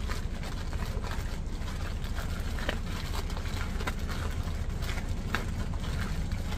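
Zip-top plastic bag crinkling and squishing as a raw ground-meat meatball mixture is kneaded by hand inside it, in short irregular crackles over a steady low hum.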